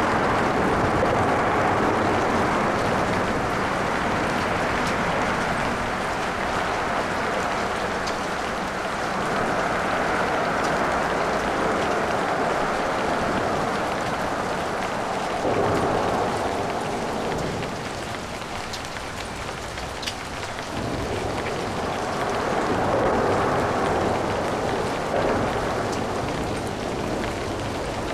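Steady light rain pattering, mixed with light traffic whose tyre and engine noise swells and fades as vehicles pass.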